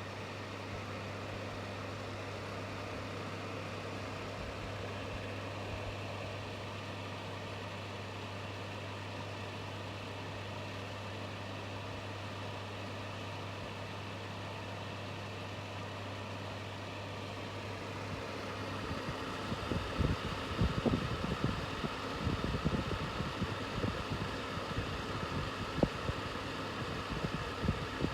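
Bathroom ventilation fan running with a steady electrical hum and a whir. About two-thirds of the way through the hum fades, the sound gets louder and an irregular low knocking and rattling sets in.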